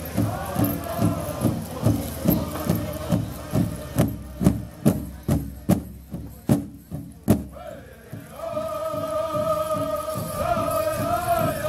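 Powwow drum group beating a large drum in a steady rhythm, about two and a half beats a second, while singers chant. In the middle the voices drop out and the beats come harder and louder. Near the end high voices come back holding long notes.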